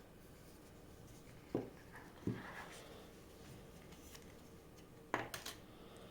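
Phone box and its packaging being handled during unboxing: a few light knocks, about one and a half, two and a quarter and five seconds in, with a brief soft rustle between the first two.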